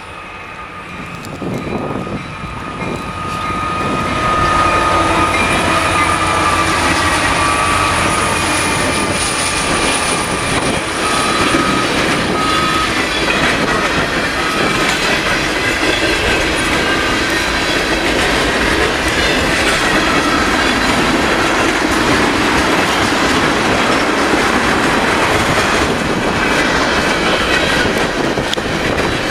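Freight train passing close by, led by EMD diesel locomotives, growing louder over the first few seconds and then a steady clatter of wheels on the rails as the cars go by. A thin high tone sounds over it for roughly the first dozen seconds.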